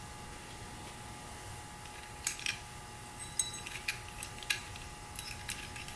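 Small metal engine parts such as washers and nuts being handled, clinking and tapping against each other and the engine. A string of light clicks starts about two seconds in, some with a brief metallic ring.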